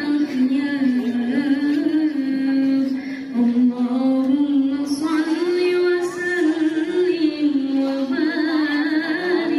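A woman's solo voice reciting the Quran in melodic tilawah style into a microphone. She holds long notes that slide up and down with wavering ornaments, taking a short breath about three seconds in.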